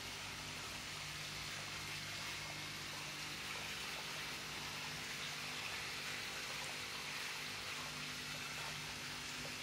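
Steady hiss of running and bubbling water in an aerated sturgeon tank, over a low, constant machine hum.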